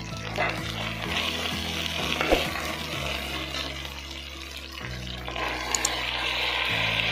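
Sliced onions and green chilies sizzling in hot oil in an aluminium pressure cooker, stirred with a metal slotted spoon that clicks against the pot now and then. The sizzling gets louder about five seconds in as chopped tomatoes go into the oil.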